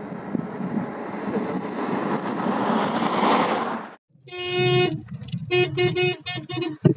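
A rushing noise that grows louder for about four seconds, then a car horn: one longer blast followed by a quick run of short toots, sounded at horses standing on the road ahead.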